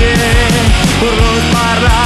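Rock band playing: electric guitars and bass over a steady drum beat, with a held melody line on top.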